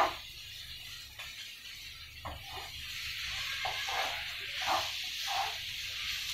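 Diced yellow onions sizzling in a frying pan over high gas heat, the sizzle growing stronger about halfway through, while a wooden spatula stirs and scrapes them every second or so. A sharp knock at the very start.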